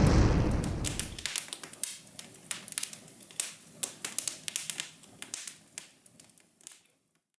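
A loud noisy rush fading out over the first second or so, then irregular sharp taps and clicks that stop shortly before the end.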